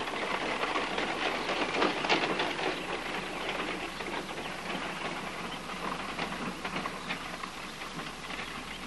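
Horse-drawn carriage pulling away: a continuous rattle and clatter of wheels and hooves that fades steadily as it moves off.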